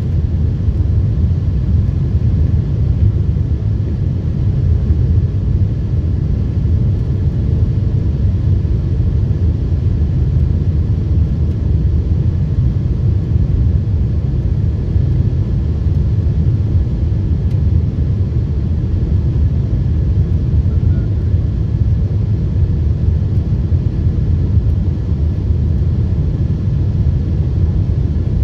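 Steady low rumble of a Boeing 747-8's cabin on approach, the jet engine and airflow noise heard from a window seat, with a faint steady high whine above it.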